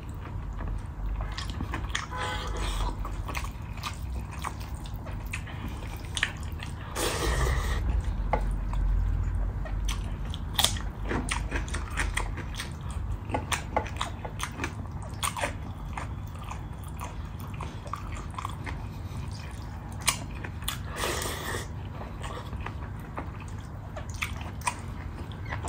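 Close-miked eating sounds of a person chewing a mouthful of rice and fried buffalo offal, with many short wet lip smacks and clicks. Twice a longer slurping sound, as food is sucked in from the fingers.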